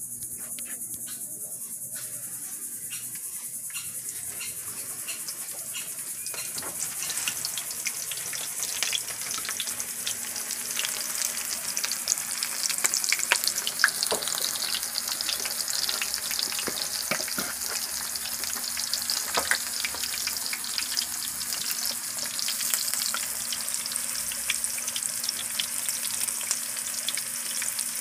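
Breaded shrimp deep-frying in hot oil in a skillet: a steady sizzle dotted with crackles and pops. It grows louder over the first several seconds as the shrimp go into the oil.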